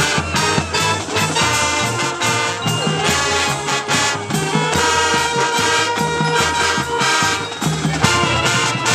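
Marching band playing, the brass section loudest, holding full chords over a steady drum beat.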